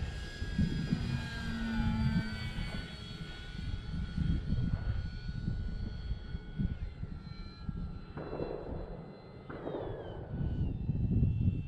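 Electric motor and propeller of a radio-controlled Arrows Bigfoot STOL plane whining in flight, its pitch sliding down at times as throttle and distance change. Underneath, gusty wind rumbles on the microphone.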